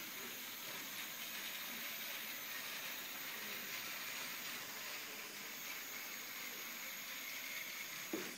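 Steady whirring hiss of a Lego robot's electric motors and gears as it drives across the floor, with one short knock near the end.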